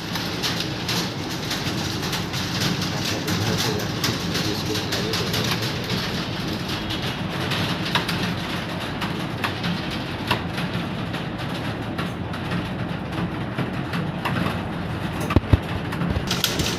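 Computer keyboard typed on rapidly and without pause: a dense, steady clatter of key clicks.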